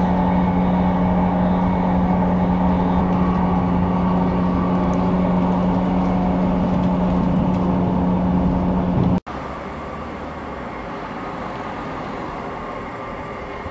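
Diesel train heard from inside a carriage on the move: a steady, loud engine drone with rail running noise. About nine seconds in it cuts off abruptly and gives way to the quieter, steady sound of a ScotRail Class 158 diesel multiple unit approaching along a station platform.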